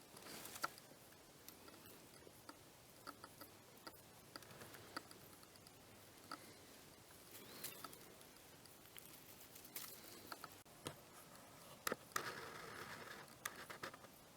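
Faint, irregular clicks and snaps from a small twig fire burning, with a brief rustle near the end.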